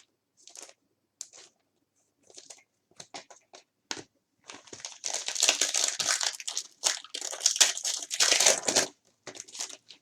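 Trading-card pack wrapper being handled, torn open and crumpled: a few light rustles and clicks, then about four seconds of dense crinkling from about five seconds in.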